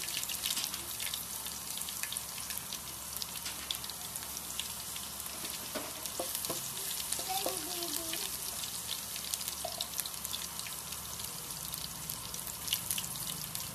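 Chopped garlic frying in hot oil in a pan: a steady sizzle with many small crackles.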